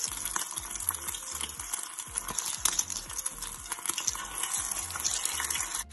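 Egg-washed chicken lollipop pieces sizzling in hot oil in a frying pan, with steady crackling and spitting as more pieces are laid into the oil.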